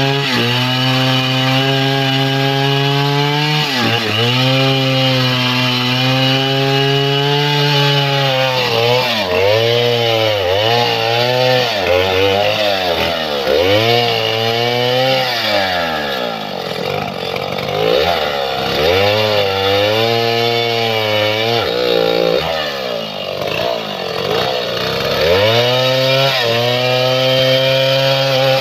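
Stihl 070 two-stroke chainsaw cutting through a mahogany log at high revs. The engine note dips again and again as the chain bites into the wood under load, then picks back up.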